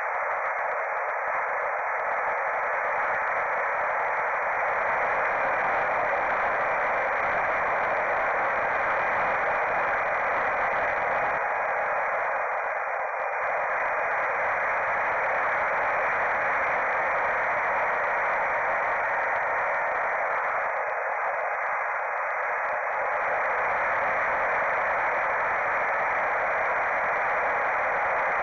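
Steady hiss, squeezed into a narrow midrange band with a few faint steady tones in it, from the Foxeer Arrow camera's built-in microphone aboard a mini Popwing FPV wing in flight. The sound is carried over the analog video transmitter's audio channel and recorded on the ground DVR.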